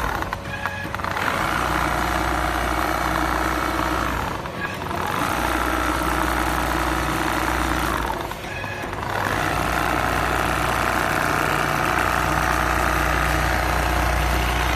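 Richpeace computerized rotary-head sewing machine running steadily, stitching through thick mattress quilting. The machine noise dips briefly three times, about half a second, four and a half and eight and a half seconds in.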